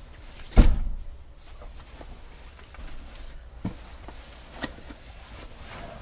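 A three-part mattress being handled and laid onto a wooden slatted bed frame: one loud thump about half a second in, then two softer knocks and fabric rustling as the sections are unfolded.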